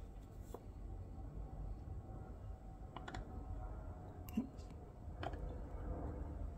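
A handful of light, separate clicks and taps of tweezers and tools against a circuit board while a tiny surface-mount resistor is held and soldered, the sharpest about four seconds in, over a low steady background rumble.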